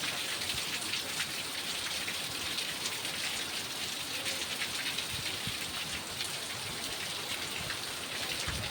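Steady rain falling: a constant hiss with many individual drops ticking through it.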